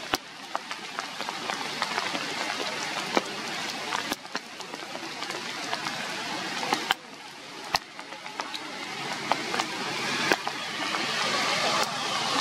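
Rain falling on forest leaves: a steady hiss with scattered sharp ticks of drops striking close by every second or two. The hiss drops suddenly about seven seconds in, then builds louder again toward the end.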